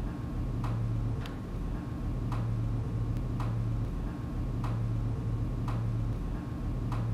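Regular ticking, like a clock in the room: a sharper tick about every second with a fainter tick between, over a steady low hum.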